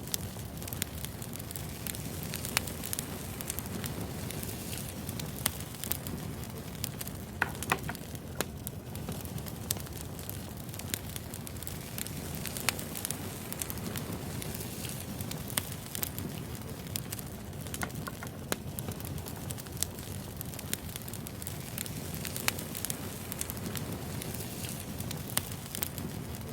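Burning firewood crackling: a steady low rush of flame with frequent, irregular sharp pops and snaps.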